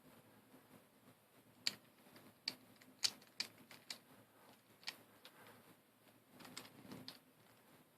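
Faint, irregular clicks of hard plastic V-Cube 7 puzzle pieces being handled and fitted into the partly rebuilt cube, about ten light clicks in all.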